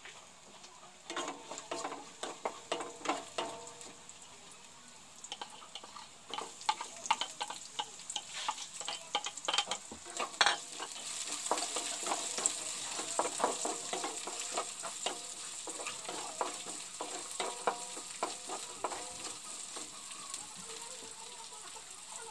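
Wooden spatula scraping and clattering against a non-stick frying pan as chopped garlic sizzles in hot oil. About halfway through, sliced onion is in the pan and the sizzle gets louder while the stirring goes on.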